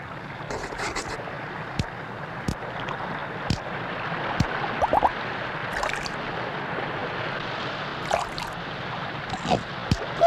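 Steady rushing of sea surf, with scattered sharp clicks through it.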